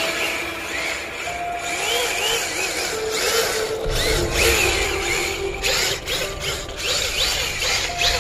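Electronic background music with repeated sweeping synth glides; the deep bass is gone at first and comes back about four seconds in.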